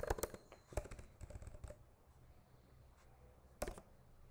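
Computer keyboard typing: a quick run of keystrokes for about the first two seconds, then a pause, then two more keystrokes close together near the end.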